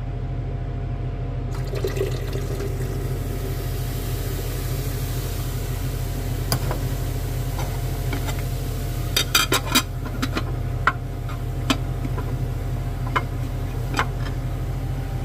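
Liquid pouring into a large glass beaker, a steady hiss from a second or two in, with several sharp glass clinks, a quick cluster of them about nine seconds in. A steady low hum lies underneath.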